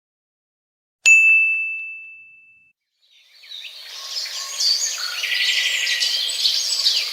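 A single high bell ding that rings out and fades over about a second and a half. After a short pause, a chorus of many birds chirping fades in and carries on.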